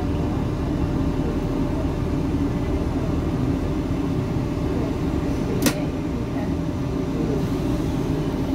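Steady low running rumble of a CAF-built diesel multiple unit, heard from inside the passenger carriage. One sharp click about two-thirds of the way through.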